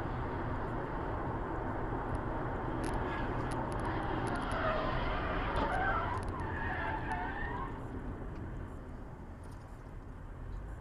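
Steady road and engine noise inside a moving car's cabin at highway speed, easing off somewhat near the end. A faint voice is heard from about four to eight seconds in.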